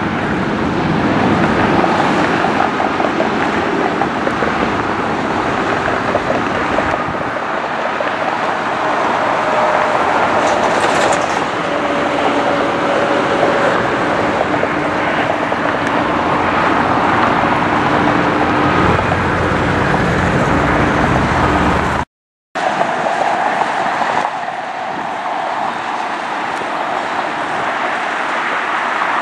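Steady jet airliner engine noise with a faint whine that drifts in pitch. About 22 seconds in it cuts abruptly to a slightly quieter stretch of similar engine noise.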